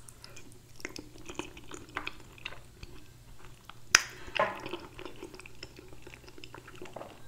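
A person chewing a mouthful of creamy fettuccine alfredo, with many small wet mouth clicks, and a single sharp click about four seconds in.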